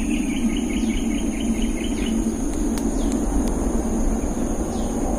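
Insects droning steadily in high, thin tones, with a rapid pulsing chirp at about six a second for the first two seconds. Under them runs a steady low rushing noise, which is the loudest part.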